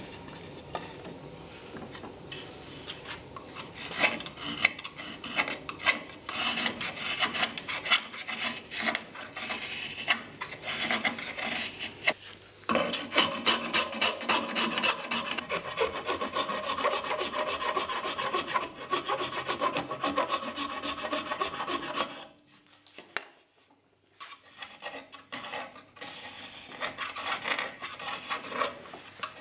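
Small thin-tipped Japanese kuri kogatana carving knife paring and scraping the wood of a kuksa cup's handle in rapid, short, repeated strokes. There is a brief pause a little over twenty seconds in, then the scraping resumes.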